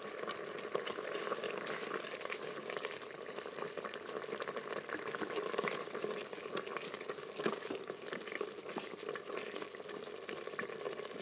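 Thick cream sauce simmering in a multi-cooker's ceramic inner pot, a steady bubbling with many small pops, while a silicone spurtle stirs it.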